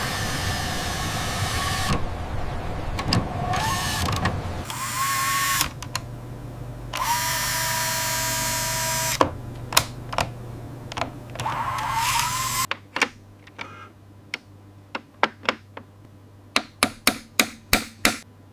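A small electric motor whines in several runs, its pitch rising as some runs start. About two-thirds of the way through it stops, and light, regular tapping on wood follows, speeding up to about three taps a second.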